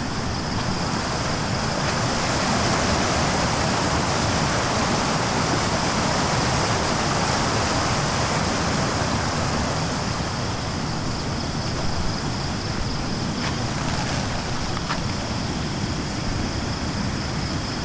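Swollen river running high and fast over rocks and small rapids after a night of heavy rain: a loud, steady rush of water. It grows a little louder a couple of seconds in, then eases slightly.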